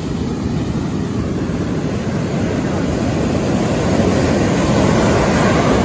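Wind buffeting the microphone over the steady rush of surf on the shore, slowly getting louder.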